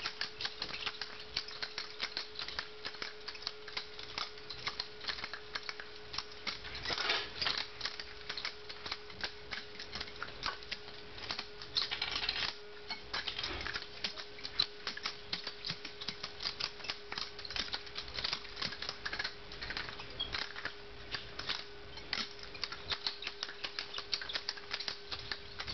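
Butterfly knife being flipped: a fast, irregular run of metallic clicks and clacks as the handles swing around the blade and knock together. A steady faint hum sits underneath.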